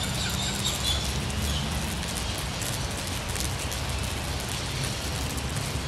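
Rain falling on a stretched shade cloth, a steady patter of many small drop ticks over a constant low rumble. A bird chirps briefly during the first second or so.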